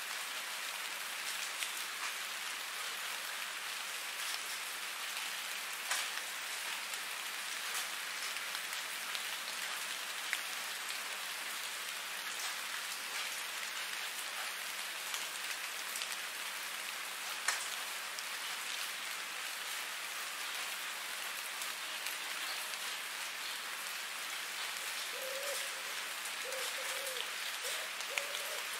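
Steady rain falling on a hard surface, an even hiss with scattered sharper drop ticks. Near the end a short run of a few brief low calls sounds over the rain.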